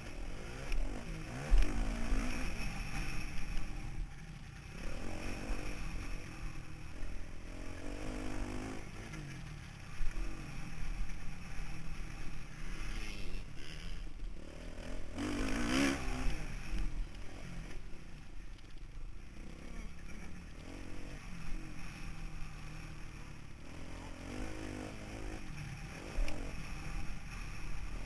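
Suzuki motocross bike's engine revving up and down repeatedly as it is ridden hard, heard from a helmet-mounted camera with heavy wind rumble on the microphone. The engine note swells loudest about fifteen seconds in.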